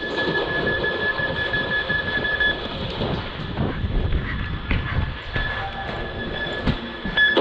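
Rumbling movement noise with many short low knocks, from a player moving quickly with a body-carried camera. A steady high electronic tone sounds for the first couple of seconds and comes back near the end.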